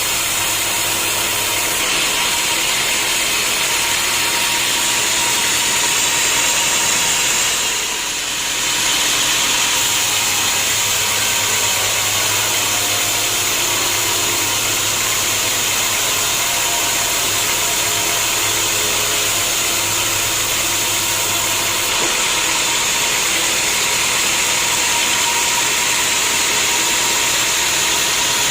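Sawmill machinery running steadily, with a brief dip in level about eight seconds in.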